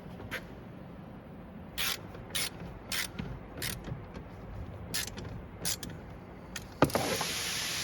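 Ratchet driving in the 7 mm screws that hold the dash: a string of sharp clicks about every half second. Near the end comes a single knock, then a steady hiss.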